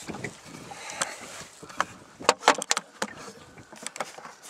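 Close handling noise of a hand gripping and moving a camera: rubbing and scraping against the body and microphone, with a quick cluster of sharp knocks a little past halfway.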